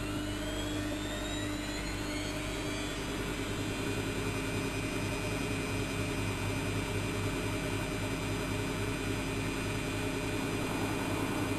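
Bauknecht WAK7760 washing machine's drum motor speeding up, its whine rising in pitch over the first three seconds, then running steadily at speed with a low hum.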